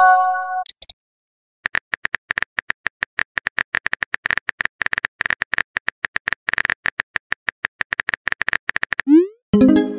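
Phone texting-app sound effects: a short chime at the start, then about seven seconds of rapid keyboard tap clicks as a message is typed, ending in a rising swoosh of the message being sent and another short chime.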